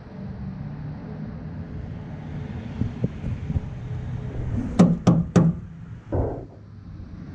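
1985 GMC 3500's 6.2 litre Detroit diesel being cranked by the starter without firing, a steady low mechanical run. About five seconds in come three sharp knocks close together, then a short rustling burst.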